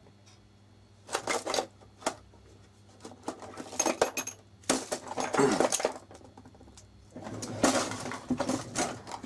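Small metal objects clinking and rattling in three bouts of sharp clicks, as hardware is rummaged through in search of a fastener.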